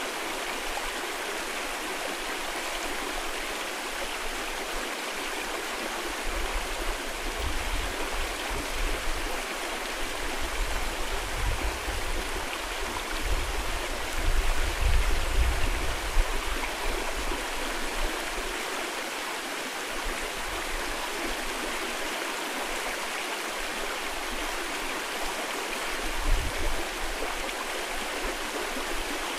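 Mountain stream rushing steadily over rocks. Wind buffets the microphone in low rumbles, strongest in the middle and once more briefly near the end.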